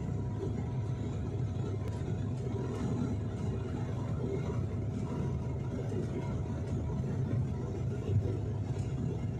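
Cabin noise of a SpiceJet Bombardier Q400 turboprop on approach with its landing gear down: a steady low rumble of engines, propellers and airflow, with a steady hum of several close tones over it.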